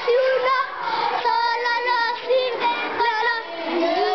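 Children singing, several voices together, with a few long held notes.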